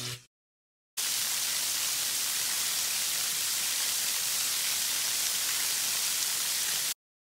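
Waterfall's thin streams of water falling and spattering onto rock: a steady hiss that starts suddenly about a second in and cuts off abruptly near the end.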